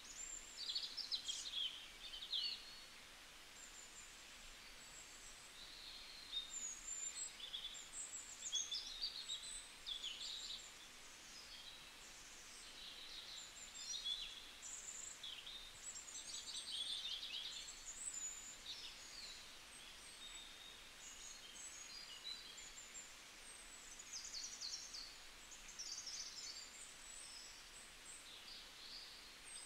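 Songbirds chirping and trilling, many short high calls in clusters every second or two, over a faint steady hiss.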